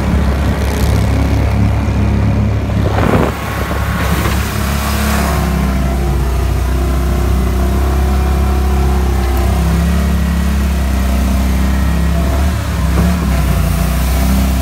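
36 hp Pro-Drive mud motor running steadily, pushing the boat through shallow marsh water, with a brief rush of noise about three seconds in.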